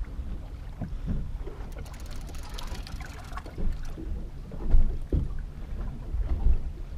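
Wind buffeting the microphone over water slapping against the hull of a small fishing boat on choppy sea. There are a couple of louder thumps near the middle.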